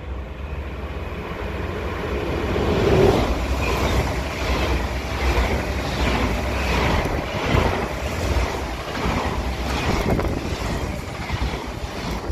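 Yellow NS double-deck passenger train passing close by at speed. The rush swells to its loudest about three seconds in as the front goes by, then the wheels beat in a regular clack roughly every three-quarters of a second as the carriages pass, easing off near the end. A low wind rumble on the microphone runs underneath.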